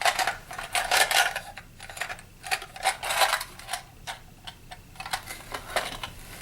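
Small hard plastic and metal sewing-machine accessories, presser feet and the like, clicking and rattling irregularly as they are handled and set back among the other pieces.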